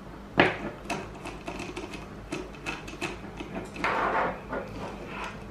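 Screwdriver with a square bit working screws out of an aluminium inverter case: a sharp click, then a run of small irregular metal clicks and ticks, with a brief scrape about four seconds in.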